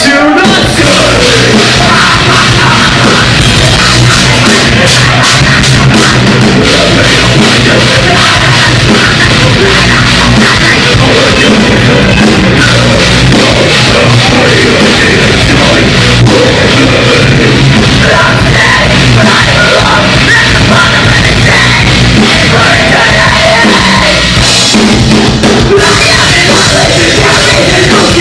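A metalcore band playing live at full volume: heavy distorted guitars and bass over a pounding drum kit, dense and unbroken.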